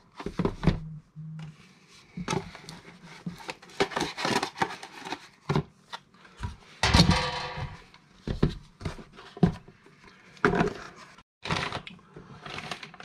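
Boxes and packaging being handled: scattered knocks and taps, with a longer rustle about seven seconds in.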